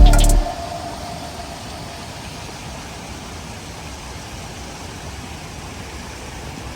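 Background music cuts off just after the start, then a steady, even rushing of a flowing stream.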